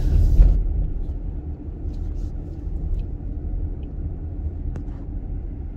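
Low, steady road and engine rumble inside the cabin of a moving car, loudest in the first half second.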